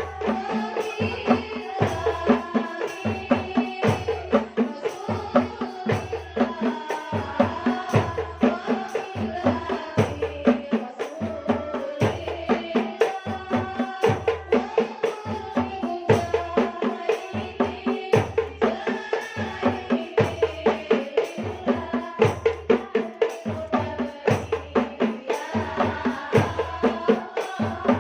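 Sholawat, an Islamic devotional song, sung to a steady beat of hand-struck frame drums.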